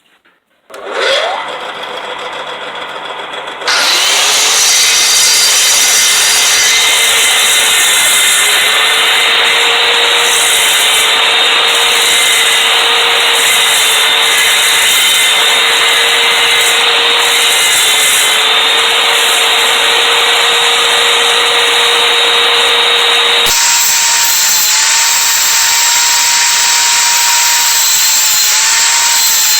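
Electric woodworking machine cutting pine, running loud and steady with a motor hum that sags slightly as it bites into the wood. About two-thirds of the way through, the sound changes abruptly to a higher-pitched hum of the same kind.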